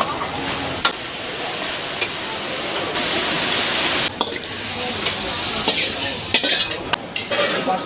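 Leafy greens stir-frying in a hot wok: a steady sizzle, with the metal ladle clacking against the wok a few times. A louder burst of sizzle about three seconds in cuts off suddenly about a second later.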